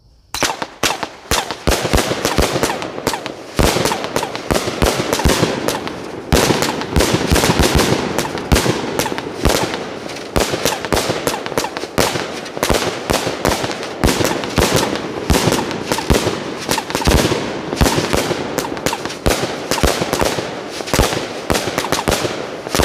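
'Ace of Spade' 49-shot firework cake firing: a rapid, unbroken run of launch thumps and bursting reports, several a second, starting about half a second in.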